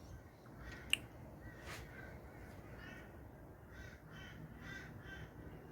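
A bird calling faintly in a run of short, repeated calls, with a single sharp click about a second in.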